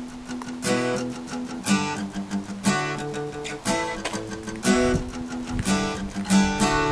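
Background music: a guitar strumming chords, with a strong strum about once a second.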